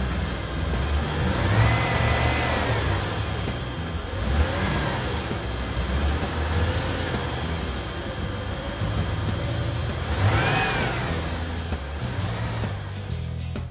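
Tiny battery-powered motors of Zuru micro toy boats whining, the pitch rising and falling in arcs as the boats speed about, over a steady low rumble.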